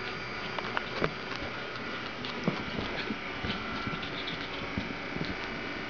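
Two Pomeranian puppies play-fighting on a rug, with irregular light taps and scuffles over a steady background hum.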